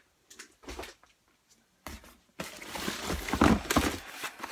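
Packaging being handled: a few brief faint rustles, then from about two seconds in, louder continuous rustling and scraping of cardboard and plastic as a boxed power strip is lifted out of a cardboard carton of bagged electronics.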